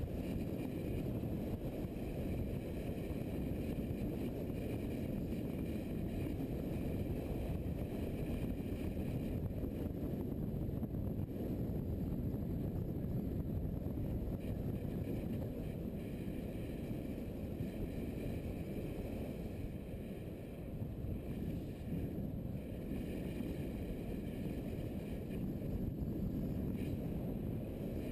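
Adventure motorcycle cruising along a road: wind rushing over the camera microphone and muffled engine running blend into a steady, low rush.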